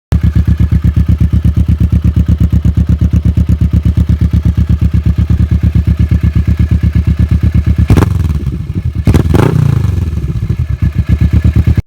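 Kawasaki Vulcan S parallel-twin motorcycle engine idling with an even, fast exhaust beat, then revved in two short blips.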